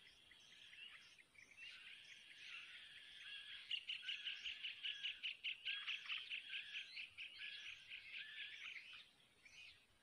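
Begging calls of yellow-vented bulbul nestlings: a rapid run of high chirps, about four a second, building from about two seconds in and fading near the end.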